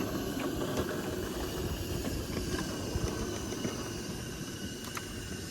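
A few faint scattered clicks and handling noise as small detailing parts are fitted by hand onto a 3D-printed wagon body, over a steady hiss.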